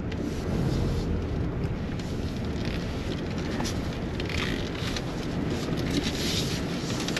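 Car rolling slowly, its engine and tyres rumbling steadily as heard from inside the cabin, with light crackling from the tyres on gravel.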